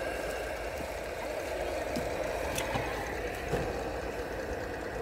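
Radio-controlled scale crawler truck's electric motor and gearbox whirring steadily as it crawls slowly over forest ground, with a few small clicks along the way.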